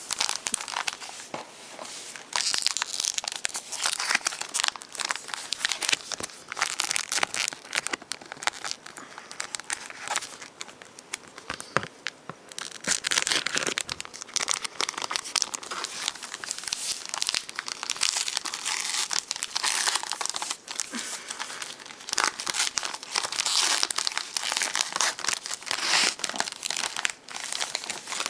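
Paper wrapper of a trading-card box-topper pack crinkling and tearing as it is opened by hand, in an irregular run of crackles.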